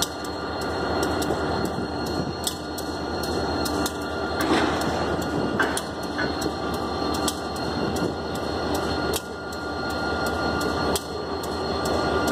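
Diesel locomotive idling steadily while it turns on a railroad turntable, with a run of light, regular clicks two or three times a second and a louder scrape about four and a half seconds in.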